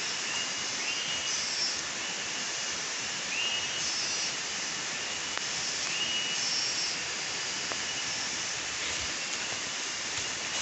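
Steady hiss of forest ambience. Over it, a short high two-note call from an unseen animal repeats about every three seconds.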